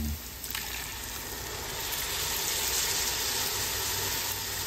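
Ladled fish stock sizzling and hissing as it hits the hot bottom of a pot of potatoes cooked in roux, after a knock about half a second in.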